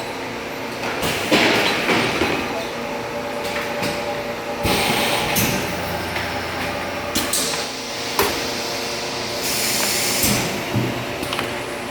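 Gas-flush (modified-atmosphere) packaging machine running: a steady mechanical hum broken by several spells of hissing air, with clunks and knocks from the mechanism.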